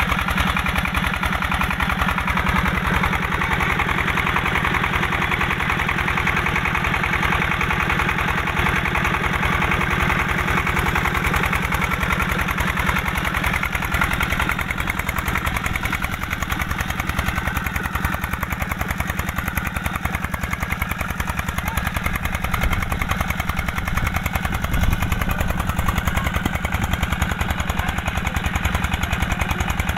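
Fara single-cylinder diesel engine running steadily under load, with rapid, even exhaust beats, driving an irrigation water pump.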